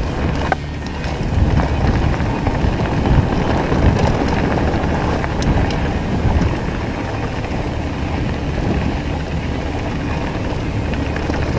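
Mountain bike descending a dirt singletrack: wind buffeting the body-mounted camera's microphone over the rumble of tyres on dirt and stones, with the bike rattling and a few sharp clicks and knocks from rocks and roots.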